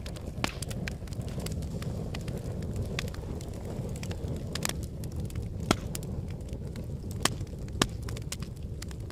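A lava flow crackling and cracking: many sharp snaps and clicks at irregular intervals over a steady low rumble, with a few louder cracks in the second half.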